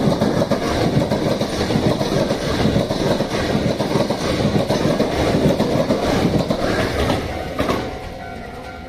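Hankyu electric commuter train passing close by, its wheels clattering over the rail joints in a dense rush of noise. The noise falls away near the end as the train clears.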